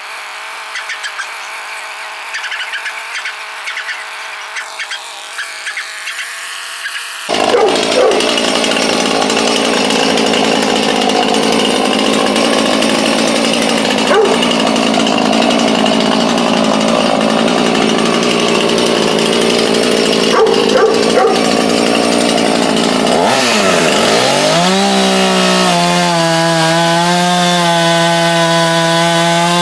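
Husqvarna chainsaw cutting through a large tree branch: quieter for the first several seconds, then loud and rasping from about a quarter of the way in. Near the end the engine note dips and recovers into a steady high-pitched run.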